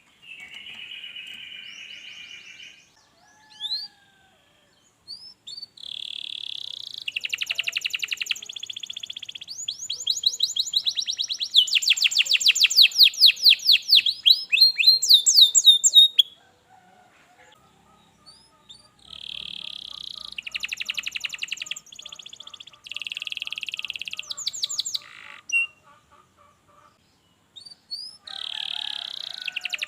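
Domestic canary singing in phrases of fast trills and rolls, with pauses of a few seconds between phrases; the longest and loudest run is in the first half.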